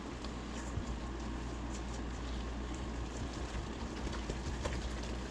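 Spoon stirring a thick, wet cornbread batter with corn in a bowl: a soft, steady stirring noise with a few light clicks of the spoon against the bowl, over a low steady hum.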